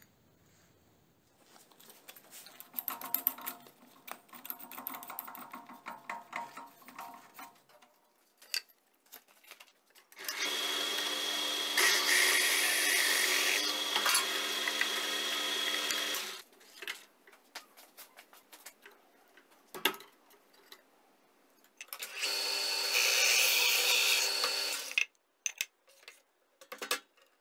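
A drill turning a homemade hole saw made from a spent CO2 airgun cartridge, boring holes into a pine board. It runs steadily for about six seconds starting about ten seconds in, and again for about three seconds near the end, with quieter scraping and rustling before the first run.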